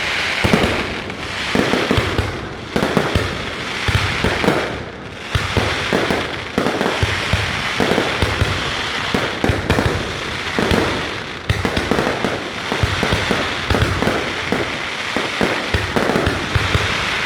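Aerial fireworks display going off: a rapid, continuous string of bangs and crackling bursts, closely packed and overlapping.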